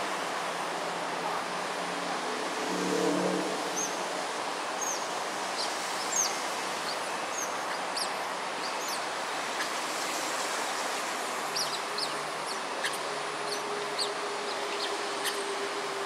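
Smooth-coated otters chirping while swimming as a group: many short, high chirps scattered from about four seconds in, over a steady background hiss.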